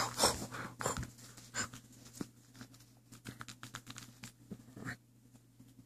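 Golden doodle puppy tussling on its back with a plush toy: irregular scuffling and scratching of paws and fabric on carpet, with a few brief puppy noises, mostly near the start.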